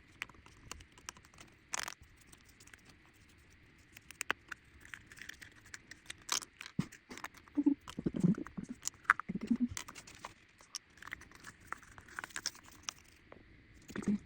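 Hands handling and opening small packaging: scattered sharp clicks, taps and light rustling, with a few soft low thumps a little past the middle.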